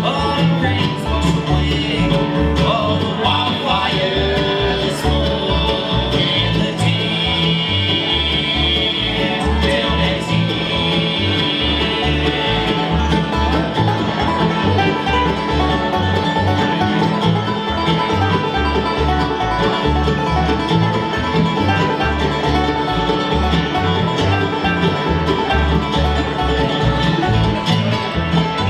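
Live bluegrass string band playing: upright bass plucking a steady beat under acoustic guitar, five-string banjo and mandolin, with the banjo stepping forward to take the lead midway.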